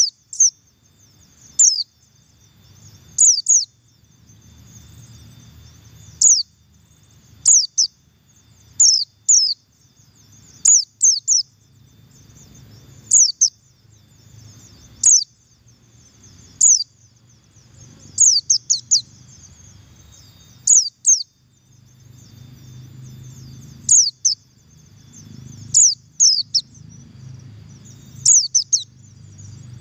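White-eye (pleci, buxtoni type) giving its high 'double call': short, sharp chirps that sweep downward, in pairs and quick clusters every second or two. A faint low hum runs underneath.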